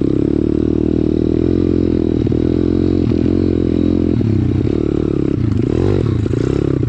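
Pit bike's small single-cylinder four-stroke engine running loud under way, its pitch dipping briefly several times and rising and falling a little more as the throttle is worked, with some rattling from the bike.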